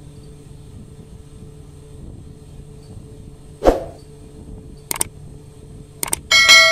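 YouTube subscribe-button animation sound effects: a short pop as the button appears, mouse clicks about a second apart, then a notification bell rings out loudly near the end. A steady background hum runs underneath.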